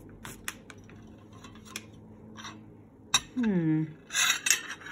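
Light clicks and taps of things being handled on a table, then a quick clatter of a metal spoon against a china plate near the end.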